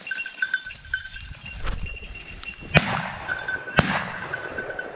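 Two shotgun shots about a second apart, fired at a flushing woodcock. Under them a hunting dog's bell rings in a steady, rapid jingle.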